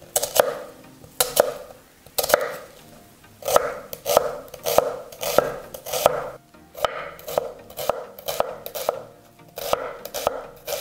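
Kitchen knife dicing a peeled onion on a wooden cutting board: sharp knocks of the blade striking the board, a few spaced slices at first, then steady chopping at two or three strokes a second.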